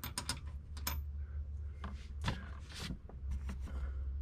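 A few light clicks and taps of small metal rivnuts being handled, over a steady low hum.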